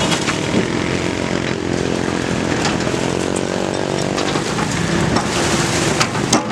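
Komatsu PC200 excavator's diesel engine running under load, its pitch rising about a second and a half in, holding, then easing back. A few sharp knocks, the loudest near the end.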